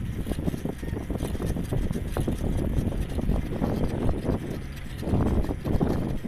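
Wind buffeting the microphone during movement outdoors: an uneven low rumble with small knocks and bumps, gusting louder about five seconds in.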